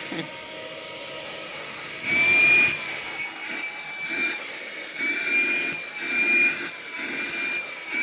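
Small red handheld vacuum's motor running with a high whine, loud from about two seconds in, then swelling and dipping in loudness several times as it is worked over a cat's fur.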